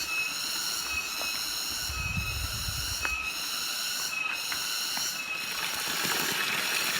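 Steady high-pitched insect chorus with a short chirp repeating about once a second. A brief low rumble comes about two seconds in.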